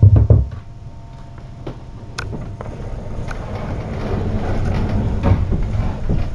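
A cat's fur pressed and rubbing against the camera's microphone: two heavy low thumps right at the start, then a low rumbling rustle that slowly grows louder, with a few scattered clicks.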